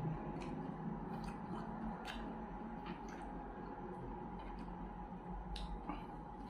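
Eating sounds: scattered small wet clicks and smacks from chewing and from fingers picking flesh off a fried fish, about one a second, over a steady low hum.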